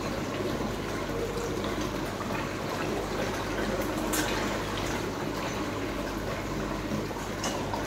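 Steady splashing and churning of water in a koi pond, with koi crowding at the surface.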